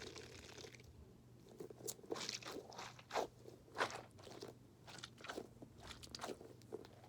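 Orbeez stress ball being squeezed and worked in the hand, the water beads inside squishing and crunching in an irregular run of squelches, loudest near the middle.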